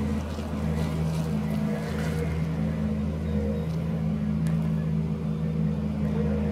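Bomag BW226DH-4 single-drum roller's diesel engine running steadily as the machine drives slowly.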